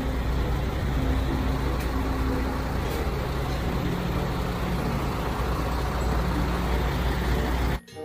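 MAN concrete mixer truck's diesel engine running steadily, with an even hiss over it; the sound cuts off abruptly near the end.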